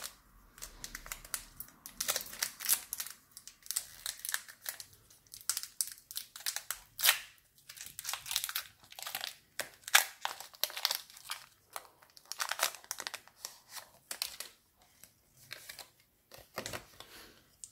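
Foil Pokémon booster pack wrapper crinkling and being torn open, a dense run of irregular crackles.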